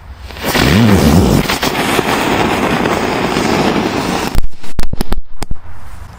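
A pyrotechnic charge going off in a hole in the ground: a loud hissing rush for about four seconds, then a quick string of five or six sharp bangs.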